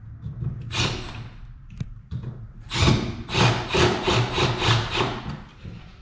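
Hand-tool work on a furnace cabinet: one scraping stroke about a second in, then a run of about seven even scraping, rubbing strokes, roughly three a second, over a low steady hum.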